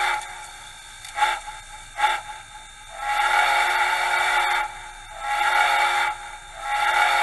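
Soundtraxx Tsunami2 'Big Steam' sound decoder playing a deep, multi-chime steamboat-style steam whistle sample through a small iPhone 4 speaker, so the lowest notes are missing. One blast ends just after the start, two short toots follow about a second and two seconds in, then longer blasts come at about three and five seconds and again near the end.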